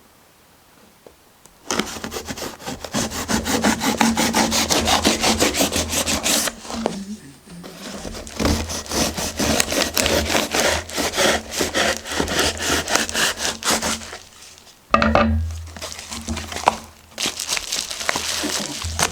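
Cardboard packaging of a parcel being cut and torn open: fast, dense scraping in several stretches of a few seconds with short pauses between.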